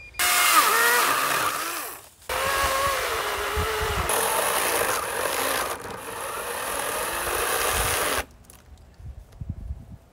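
40-volt battery electric chainsaw cutting into a log: a short run of about two seconds, a brief break, then about six seconds of steady cutting that cuts off suddenly about eight seconds in as the battery runs dead.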